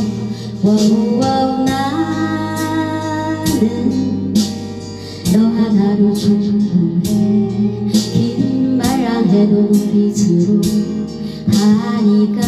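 A woman singing a Korean song into a handheld microphone over a backing track with a steady beat.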